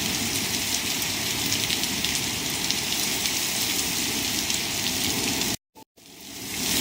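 Torrential rain pouring down steadily. About five and a half seconds in the sound cuts out abruptly, then fades back in near the end.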